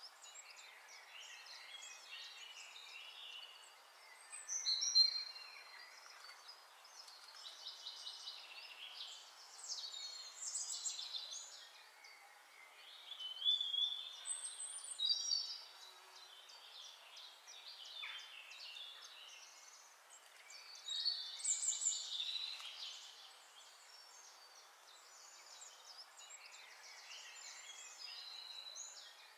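Birds chirping and calling over a faint steady hiss, in short bouts every few seconds, the loudest about five seconds in.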